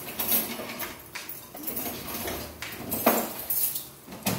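Metal tongs and utensils clattering against plates and a tabletop grill pan: a string of irregular sharp clacks and clinks over a low background hubbub.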